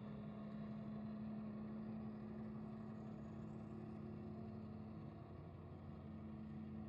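Crab fishing boat's engine running, a faint steady hum that holds one pitch.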